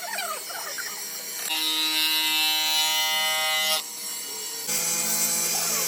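A small electric power tool running with a steady motor whine, in short abrupt cuts. The pitch changes from one cut to the next: a higher one from about one and a half seconds in, and a lower one near the end.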